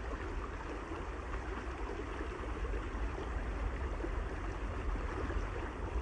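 Flowing stream water, a steady, even rush.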